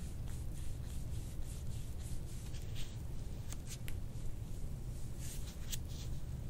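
Hands rubbing and pressing on skin and clothing, a soft rustle with a few faint clicks in the middle and again later, over a low steady room hum.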